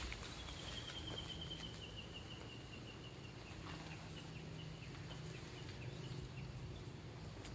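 A bird calling outdoors: a long run of short, high notes that slowly falls in pitch and slows down, lasting about six seconds, over a faint steady low hum.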